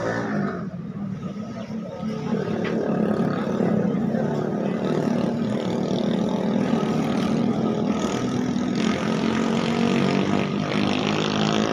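An engine running steadily, getting louder about two seconds in.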